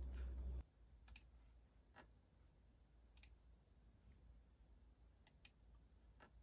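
A low hum cuts off suddenly about half a second in. A handful of light, sparse clicks follows, about six spread irregularly, over faint room tone.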